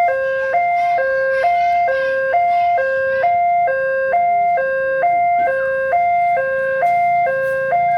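Railway level-crossing warning siren: an electronic two-tone alarm switching steadily between a high and a low note, about one high-low pair per second.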